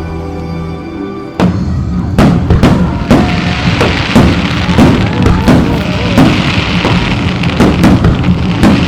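Aerial firework shells bursting in quick, overlapping succession over music, starting about a second and a half in.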